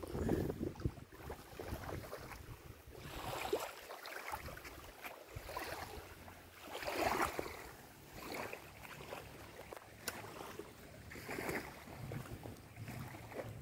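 Small waves washing onto a sandy shore in surges every few seconds, with wind buffeting the microphone.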